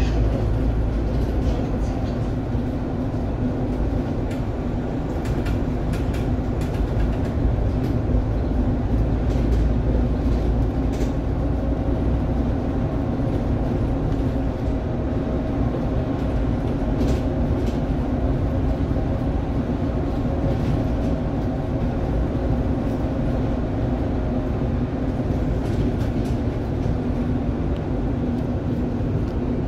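Inside a city bus while it drives: a steady drone of engine, drivetrain and road noise with a low hum, broken by occasional short rattles and clicks.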